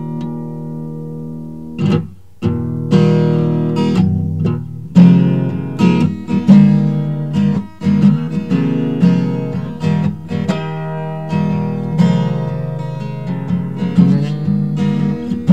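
Acoustic guitar strumming chords, an instrumental stretch of a song.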